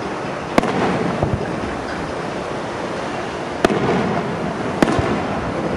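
Aerial firework shells bursting: three sharp bangs, the first about half a second in and two more about a second apart later on, over a continuous noisy background.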